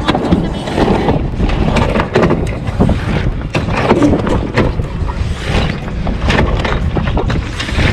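Sailboat winch being cranked by hand with a winch handle, giving irregular ratcheting clicks, over wind buffeting the microphone.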